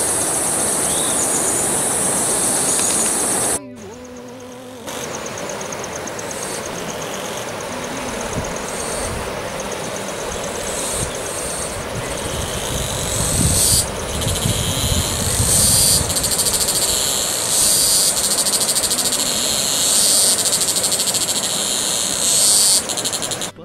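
A chorus of insects buzzing steadily at a high pitch, wavering in strength, over a steady low rushing noise. It drops out briefly about three and a half seconds in, then comes back and grows louder in the second half.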